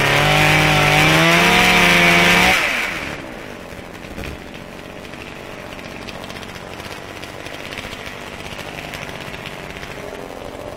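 Chainsaw running at full throttle as it cuts into the base of a tree, its pitch wavering under load. About three seconds in the throttle is let off, the pitch falls away, and the saw drops to a much quieter steady idle.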